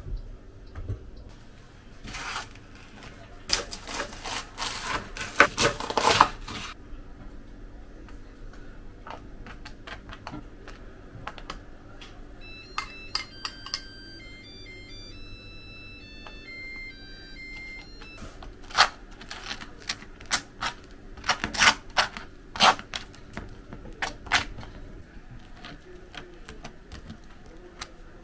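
A table knife scraping and crunching on crisp toasted bread in two runs of dry, crackly strokes. Between them a short melody of high electronic beeps plays.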